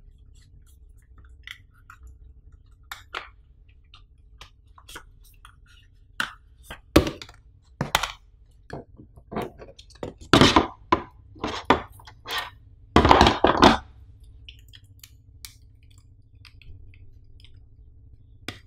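Hands handling a laptop's white plastic power adapter and its coiled cables over a moulded box tray: scattered clicks, taps and rustles, busier and louder from about six seconds in, with a longer rustle near the end.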